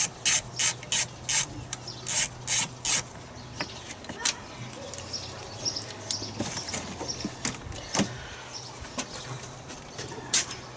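Hand ratchet wrench backing out an 8 mm bolt: a run of quick ratcheting strokes, about three a second, for the first three seconds, then scattered light clicks and rattles.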